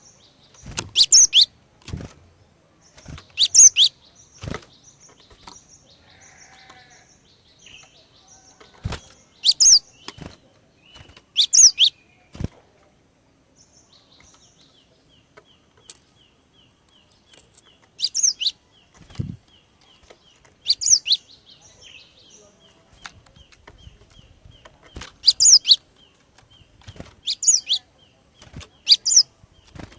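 Female cinereous tit (glatik batu) calling: loud, short, sharp calls, each sweeping down in pitch, given singly or in quick pairs every few seconds. Fainter quick chips and a fast ticking series carry on quietly between the calls.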